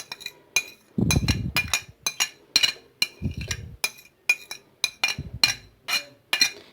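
A spoon knocking repeatedly against a bowl with sharp, ringing clinks, about three a second, as ingredients are tipped and scraped into it. Two duller, heavier thumps come about a second in and again about three seconds in.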